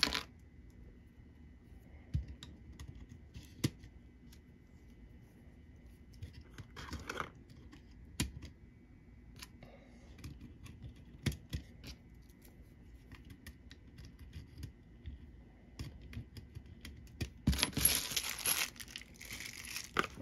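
Plastic pluggable terminal-block connectors being pushed onto the pin headers of an LED controller board by hand: scattered light clicks and knocks, with a short rustle of cardboard handling near the end.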